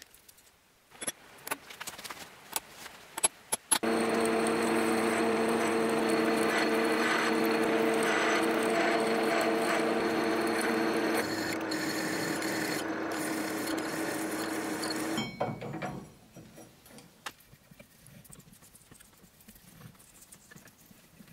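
Milling machine running a twist drill through a metal bracket: a loud, steady machine sound with a few held tones. It drops a little in level about two-thirds through and stops abruptly. Light clicks of metal parts being handled come before it, and faint clicks after.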